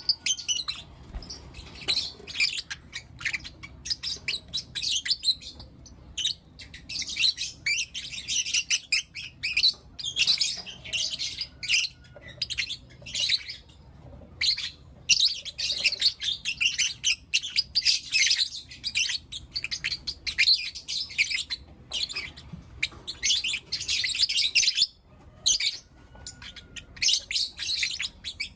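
Lovebirds chirping in rapid, high-pitched runs of calls, near continuous with brief pauses. A faint low hum runs underneath.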